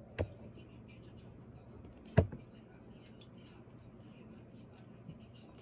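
Metal chopsticks picking through broccoli in a stainless steel bowl, with one sharp knock of metal on metal about two seconds in and soft scattered clicks after it.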